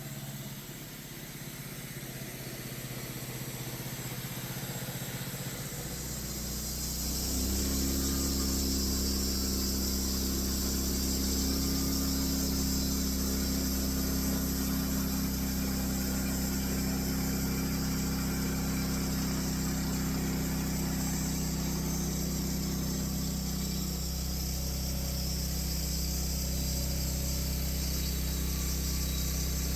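Engine of a homemade sawmill running steadily; it picks up speed about seven seconds in and holds there.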